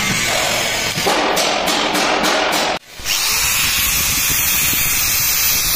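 Electric power tool motor running loudly, broken by a brief drop about three seconds in, after which a faint high whine rises slowly in pitch.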